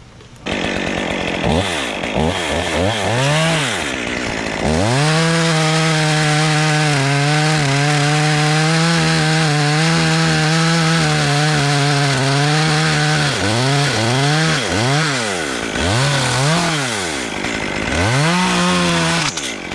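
Chainsaw revving up and down a few times, then held at full throttle for about eight seconds as it cuts through wood, then revved several more times near the end.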